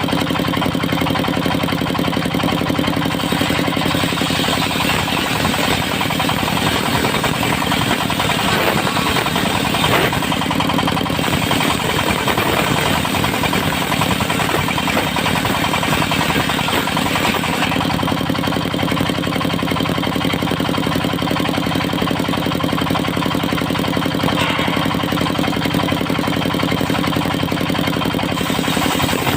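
The engine of a portable circular-saw sawmill running steadily at working speed. A higher, rougher hiss over it swells and eases several times.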